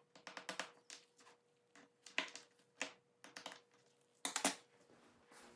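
Light metallic clicks and rattles of a bicycle chain being handled, coming irregularly, with a quick run of clicks early on and a louder cluster about four seconds in.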